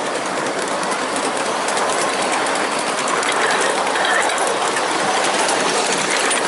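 Ride-on 1.5-scale miniature train rolling along its track: a steady running rumble of wheels on rail with a light, rapid clicking.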